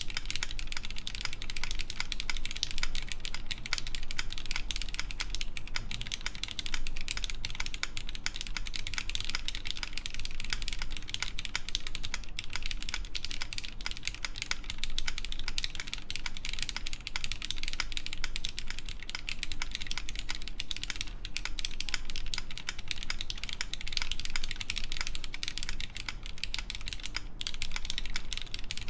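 Continuous fast typing on a mechanical keyboard with lubed Cherry MX Black linear switches, GMK keycaps and an aluminium plate: a dense, unbroken run of key clacks.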